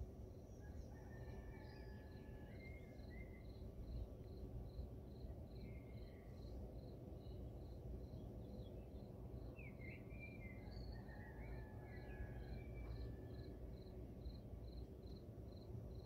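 A cricket chirping steadily in even, regular pulses, with birds calling briefly now and then, over a faint low rumble of dawn ambience.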